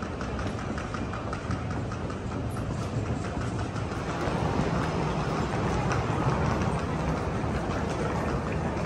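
Airport terminal background noise: a steady low rumble, with light, rapid clicks through the first few seconds.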